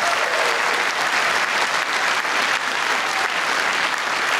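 Audience applauding, a steady burst of many hands clapping.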